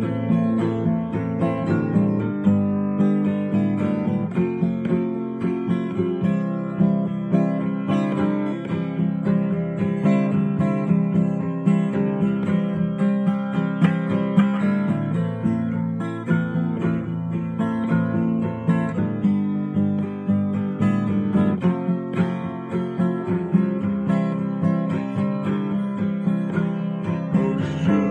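Acoustic guitar played solo, strummed and picked chords in a steady rhythm, with no singing.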